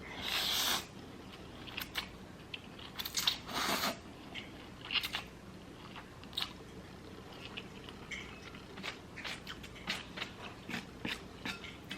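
Close-miked eating: two loud crunching bites, near the start and about three seconds in, then chewing with many small crunchy clicks.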